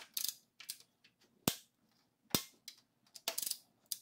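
Ratchet wrench clicking as cylinder head bolts on a Mini Cooper 1.6 N16 engine are turned in the 90-degree angle-torque stage after being torqued to 22. The clicks are sharp and irregularly spaced, with a quick run of them about three and a half seconds in.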